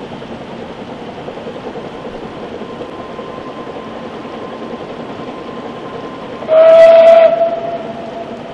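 Narrow-gauge steam train running, with one short, loud steam-locomotive whistle blast about six and a half seconds in.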